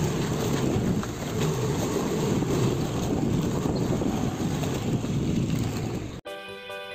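Riding a motor two-wheeler: wind buffeting the microphone over the running engine. A little over six seconds in it cuts off abruptly to background music with plucked-string notes.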